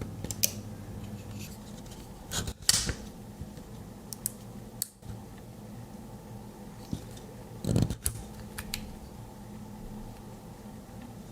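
Small metal clicks and scrapes from handling a Victorinox Swiss Army Knife, scattered irregularly, the loudest twice, over a steady low hum.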